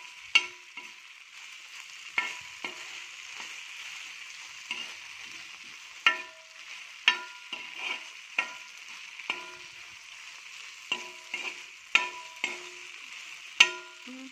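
Spatula stirring and scraping sauce-coated cauliflower fritters in a frying pan over the heat: a steady sizzle, with a sharp knock of the spatula against the pan about once a second, and the pan ringing briefly after each knock.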